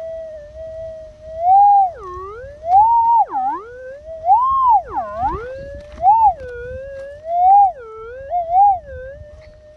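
Metal detector audio from a 15x10 X-Coil: a steady threshold tone whose pitch swoops up and down several times as the coil passes over the dug hole. These are target signals while the hole is checked for the find.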